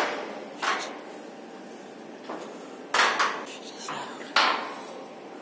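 Metal scaffolding clanking as it is climbed: sharp metallic knocks, one at the start, another under a second in, a quick pair about three seconds in and one more past four seconds, each dying away briefly.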